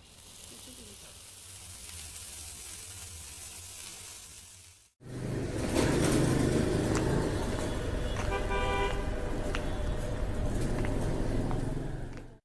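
Street traffic noise with cars passing, and a car horn sounding briefly a few seconds after a sudden cut from a fainter steady hiss.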